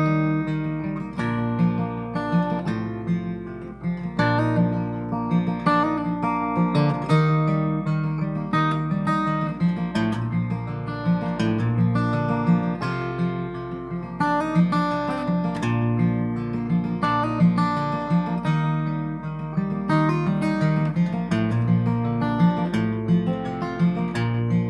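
Solo acoustic guitar playing an instrumental break with no vocals. Picked and strummed chords run over a steady, repeating pattern of low bass notes.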